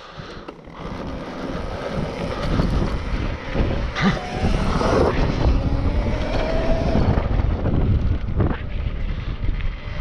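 Apollo RFN electric dirt bike pulling away and riding, its quiet motor whine half-buried under wind buffeting the microphone; the sound builds about a second in and then holds steady.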